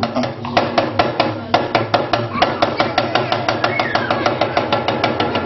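Balafons (West African wooden-keyed xylophones) and hand drums playing a fast, even rhythm of wooden strikes, about seven a second.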